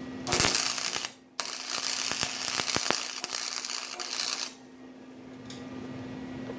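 Wire-feed (MIG) welder arc crackling as a steel plate is welded to a frame: a short burst under a second long, a brief stop, then a longer run of about three seconds with sharp pops through it, ending about four and a half seconds in.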